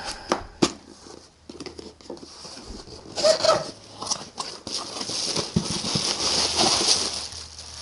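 A cardboard box being opened and unpacked by hand: a few knocks and taps on the box early on, then several seconds of rustling cardboard and packing material as hands dig inside.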